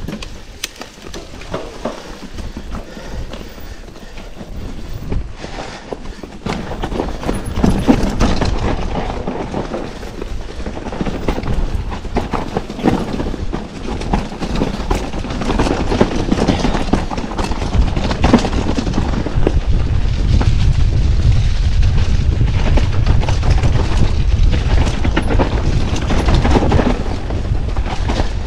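Mountain bike descending a dirt trail, heard from a chest-mounted camera: tyres rolling over dirt and rocks with the bike rattling and knocking over bumps over a continuous rumble, louder from about a quarter of the way in.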